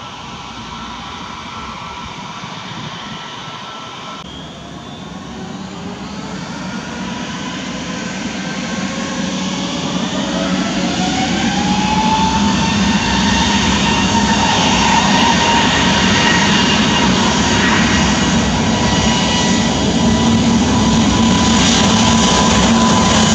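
Airbus A320neo's Pratt & Whitney PW1100G geared turbofan engines spooling up for takeoff: a whine that climbs in pitch from about four seconds in, the engines growing steadily louder until about twelve seconds in, then holding steady at takeoff power as the jet begins its roll.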